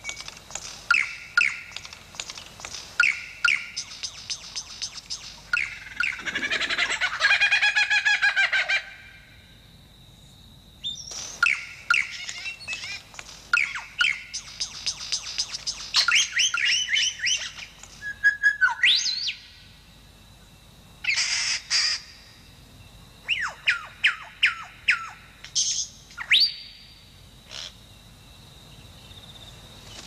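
Lyrebird singing a long, varied run of mimicked bird calls. It goes from bursts of quickly repeated whistled notes to a dense, raspy passage about six seconds in, then on to sweeping and rising whistles, with short pauses between phrases.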